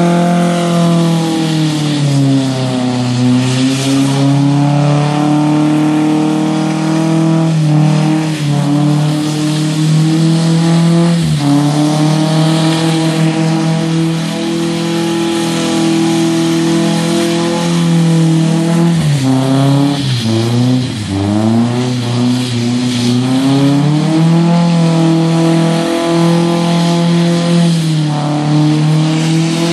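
Flatbed compact pickup truck doing donuts, its engine held at high revs with the rear tires spinning on wet pavement. The revs dip and climb back about three seconds in and again around twenty seconds in.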